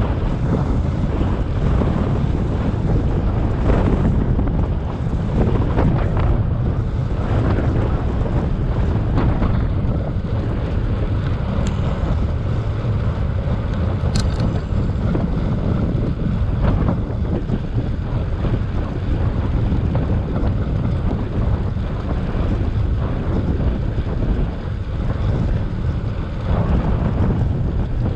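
Wind buffeting the microphone of a moving bicycle: a loud, steady low rumble of rushing air.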